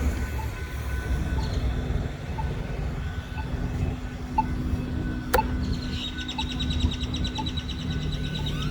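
Steady low mechanical rumble with a constant hum, a sharp click about five seconds in, and a fast, high repeating trill from about six seconds on.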